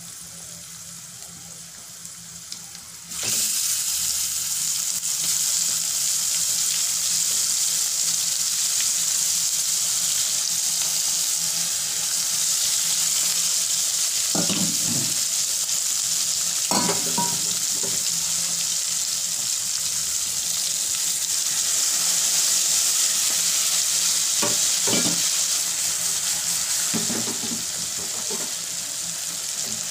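Masala-coated rawas (Indian salmon) pieces go into hot oil in a kadhai about three seconds in, setting off a loud, steady sizzle of frying fish. A few short knocks against the pan come through the sizzle in the middle and near the end.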